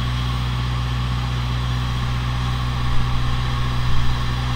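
Coupler being set between a live steam locomotive's tender and a riding car, two soft knocks about three and four seconds in, over a steady low hum.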